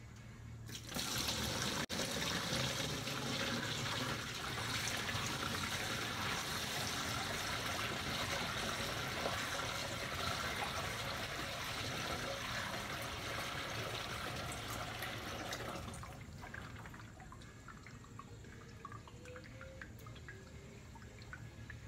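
Used engine oil mixed with engine flush poured from a drain pan through a funnel into a storage jug: a steady pour that starts about a second in and, after about sixteen seconds, thins to trickles and drips.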